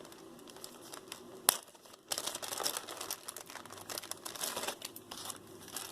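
Packaging crinkling and rustling as jewelry is handled, with a sharp click about a second and a half in. The crinkling is densest in the middle seconds.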